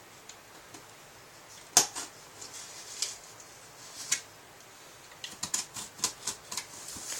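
Hands handling a shipping package. A sharp click or tap comes about two seconds in, then a few more spaced out, then a quick run of small clicks and scrapes near the end.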